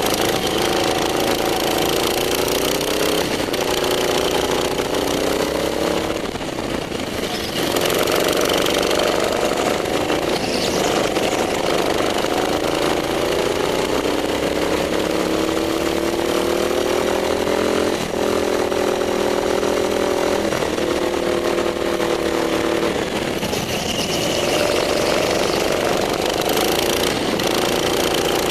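Go-kart engine heard from the driver's seat during hot laps, running hard with its pitch climbing and falling with the throttle. It eases off for a moment about six seconds in, as for a corner.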